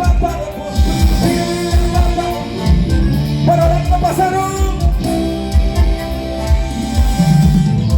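Loud amplified carnival music with a steady thudding beat and a held melody line over it.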